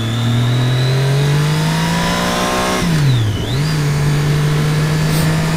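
Triumph Daytona 675R's three-cylinder engine under way, its pitch rising slowly. A little before halfway the revs dip sharply and climb back, then hold steady, over steady wind and road rush.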